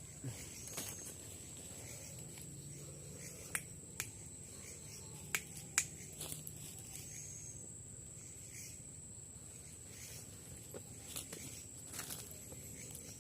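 A steady high-pitched insect drone with a scattering of sharp clicks and snaps, the loudest a few seconds in.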